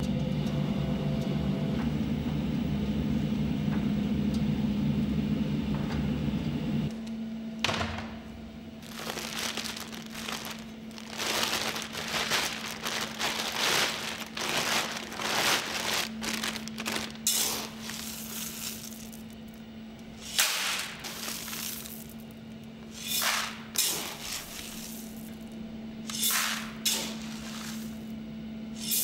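A Giesen coffee roaster's gas burner runs with a steady low roar until about seven seconds in. Then, over a steady machine hum, a plastic bag of green coffee beans rustles in a bucket in a series of short crinkling, pouring bursts.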